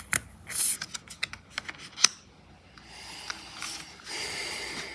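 Oracle cards shuffled by hand: a run of quick clicks and flicks of card edges for about two seconds, then a softer sliding and rubbing as a card is drawn from the deck.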